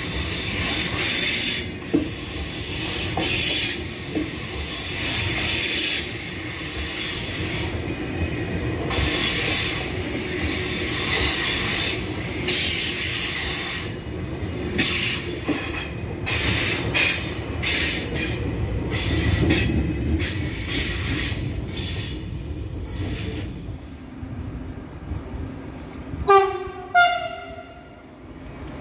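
Double-deck TGV Duplex high-speed trainset rolling past along the platform: a steady rumble and rattle of wheels and running gear that fades toward the end as the train clears. Near the end a train horn sounds two short blasts.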